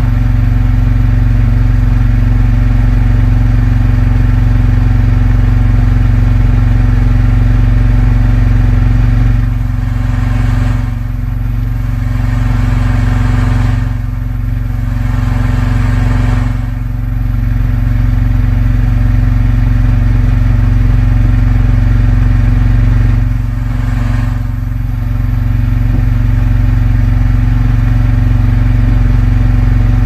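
Engine aboard an outrigger fishing boat running with a steady, loud low drone. The sound dips briefly a few times.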